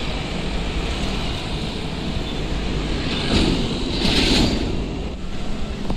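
Heavy diesel trucks passing on a highway: a steady low engine rumble, with a rush of tyre and engine noise that swells as a container truck goes by close, about three to four and a half seconds in, then eases.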